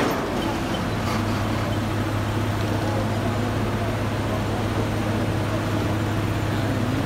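Diesel engine of a bored-piling drilling rig running steadily with a low hum while the rig hoists its auger, packed with soil, up out of the bore.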